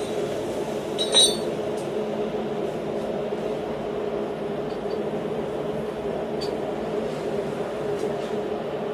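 Steady hum of a forge running, with a sharp metallic clink about a second in as steel is lifted off the steel bending-fork block, and a few faint ticks later.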